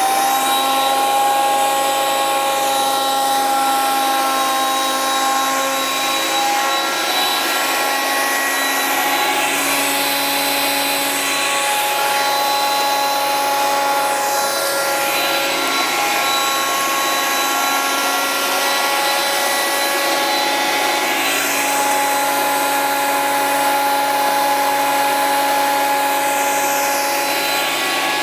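Parkside PADM 1250 A1 planer-thicknesser running: a steady, high electric-motor whine with the rushing noise of the cutterhead planing a board fed through it.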